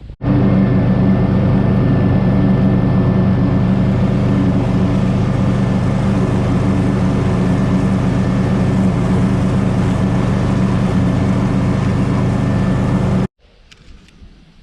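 An engine running steadily at close range for about thirteen seconds, at a constant speed with no revving, starting and stopping abruptly.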